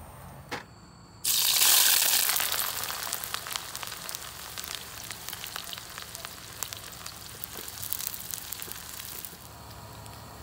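Sliced onion frying in hot oil in a wok: a loud sizzle starts suddenly about a second in and slowly dies down, with many small pops, settling quieter near the end.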